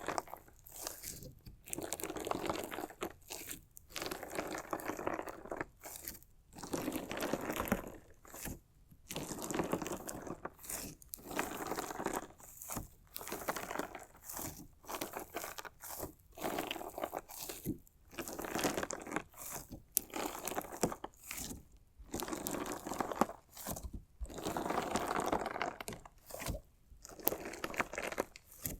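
Crunchy slime mixed with decorative stones being worked in repeated strokes: crackly crunching bursts every second or two, with brief pauses between.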